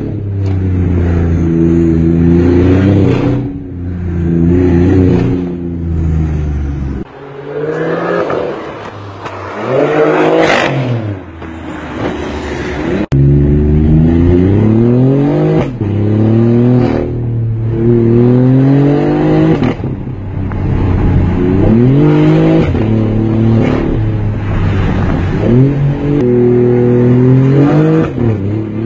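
BMW i8's 1.5-litre turbocharged three-cylinder engine, heard from inside the cabin, accelerating through the gears: its note climbs in pitch again and again and drops back at each shift. For a few seconds in the middle the engine note gives way to a rising and falling rush of noise.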